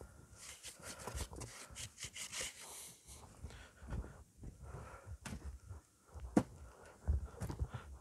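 A snow-covered wooden chair being handled and its seat brushed by hand: soft scraping and rustling, then a few sharp wooden knocks, the sharpest about six seconds in.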